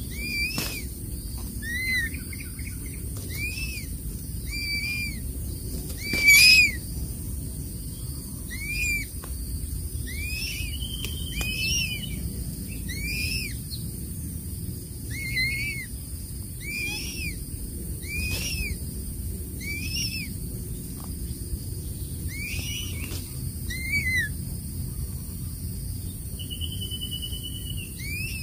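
Crested serpent eagle nestling giving repeated high whistled calls, each rising then falling, about one a second, with one louder, sharper sound about six seconds in.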